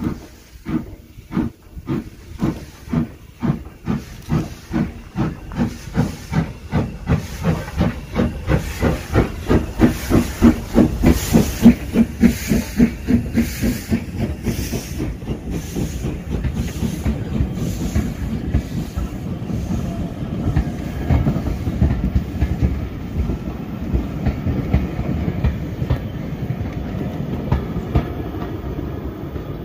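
Steam locomotive pulling a train away, its exhaust chuffs hissing and quickening from about two to about four a second as they grow louder. After about 13 seconds the beats blend into the steady rumble and clickety-clack of the carriages rolling past.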